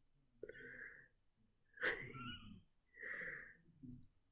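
A person laughing quietly and breathily in four short bursts.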